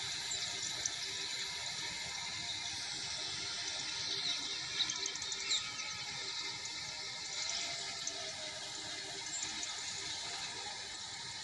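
A steady hiss, with a few faint short high chirps about four to six seconds in.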